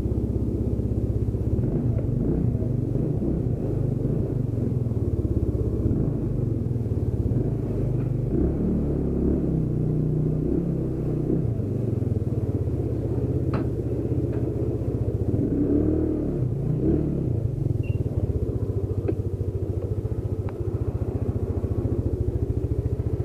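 Wind buffeting on the microphone of a camera on a moving motorcycle, a steady low rumble mixed with the motorcycle engine running.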